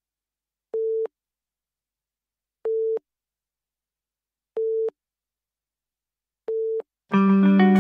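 Four short electronic beeps, each one steady mid-pitched tone, about two seconds apart. Music begins just before the end.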